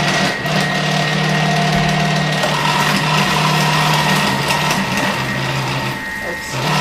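Thermomix TM6 motor driving the cutter attachment on its thick slicing setting, slicing onion pushed through the feed tube: a steady motor hum that dips briefly about six seconds in, then picks up again.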